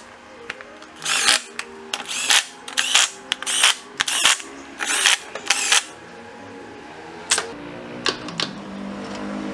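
Makita cordless driver running in about eight short spurts over some five seconds, driving in the bolts of a scooter's transmission (CVT) cover.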